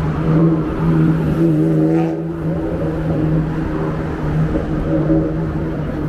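Street traffic: a motor vehicle engine running with a steady low hum, swelling briefly about two seconds in.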